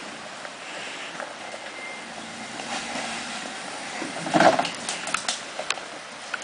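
Jeep Rubicon 4x4 crawling out of a creek over rough ground, with a steady background of running noise. About four and a half seconds in comes a loud short bump, then several sharp knocks.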